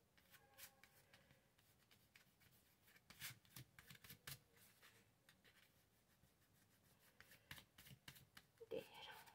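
Faint paper rustling and light taps from hands handling and pressing glued paper, heard as scattered soft clicks. A brief voice-like sound near the end is the loudest moment.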